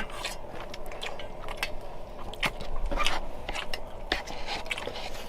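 Close-up eating sounds: chewing and biting, with light irregular clicks over a faint steady hum.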